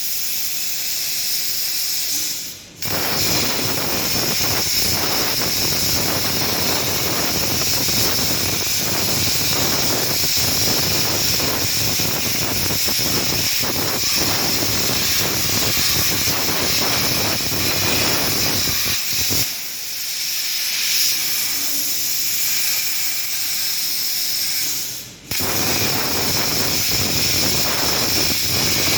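Plasma cutting torch of a SteelTailor Dragon III CNC cutting machine running steadily, a loud hiss with a crackle through it. The sound cuts out briefly twice, about three seconds in and again near the end, and starts straight back up.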